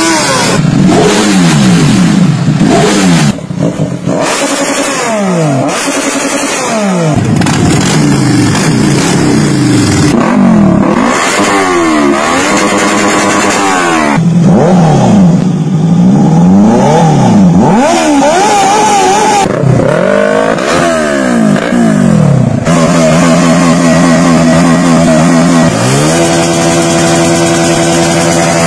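Sport motorcycle engines revved in turn on the throttle, their pitch sweeping up and falling back again and again: a Kawasaki Z900 inline-four, a Yamaha R3 parallel twin and a Honda CBR150 single. Near the end the revs are held steady.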